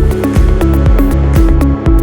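Electronic background music with a steady beat, heavy bass and synthesizer notes.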